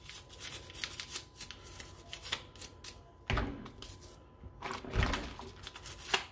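Soft toothbrush scrubbing a plastic toy car in a bowl of soapy water: quick, irregular brushing strokes, with two louder knocks of the toy or hand against the bowl, about three and five seconds in.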